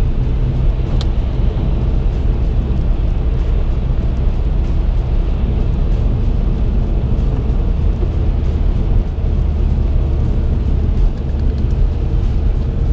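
Steady road noise inside a moving car's cabin: a low engine and tyre drone with the hiss of tyres on a wet road. There is a faint click about a second in.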